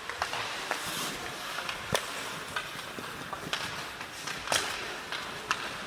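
Ice hockey play in an indoor rink: a string of sharp clacks, irregularly spaced about half a second to a second apart, from sticks striking the puck and the boards, over a steady hiss of skates on the ice, with a short ring of rink echo after the louder hits.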